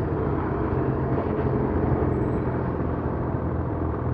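Ski-Doo Gen 4 850 snowmobile's two-stroke twin engine running steadily under way, a low even drone that holds the same pitch throughout.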